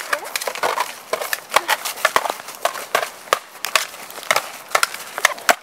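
Wooden toy swords clacking together in a mock sword fight: many sharp, irregular knocks in quick succession.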